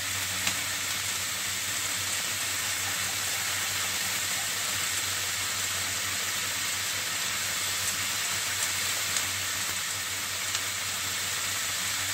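Beef short ribs and sliced onions sizzling in a stainless steel wok: a steady hiss with a few faint pops, over a low hum.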